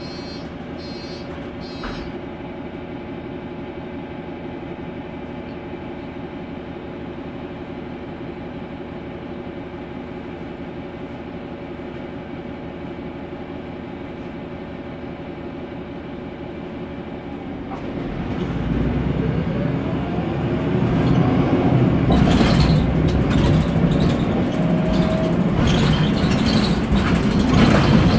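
Mercedes-Benz Conecto NGT city bus's Mercedes OM 936G CNG engine idling with a steady hum, heard inside the cabin. About 18 seconds in the bus pulls away and the note gets louder and rises in pitch as it accelerates. Knocks and rattles join it from a little later.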